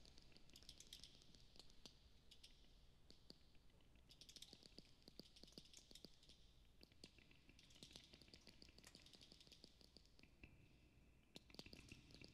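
Near silence with faint scattered clicks and soft, high hissy rustles that come and go.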